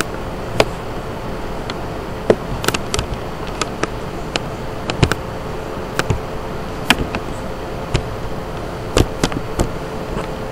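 Computer mouse clicking about a dozen times at irregular intervals, over a steady hiss and a faint steady hum.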